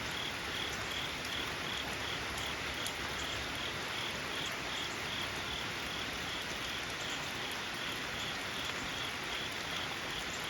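Steady rain falling, with a faint high chirp repeating about twice a second.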